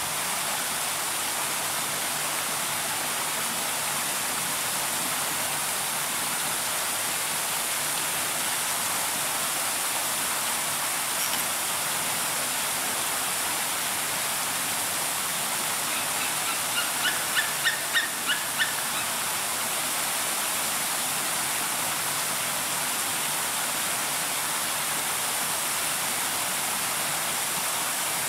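Steady, even hiss of running water. Near two-thirds of the way through, a bird gives a quick series of about seven short, high call notes.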